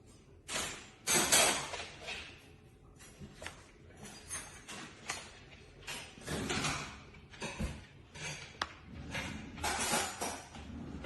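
Irregular scraping and shuffling noises in short bursts of a second or less, with a few sharp clicks or taps among them.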